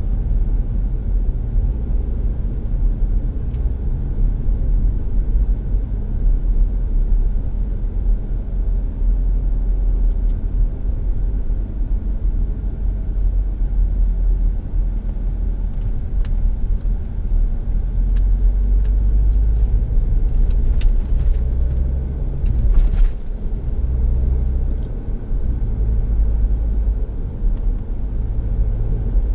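Steady low rumble of engine and road noise heard from inside a moving car, with a few faint clicks about two-thirds of the way through.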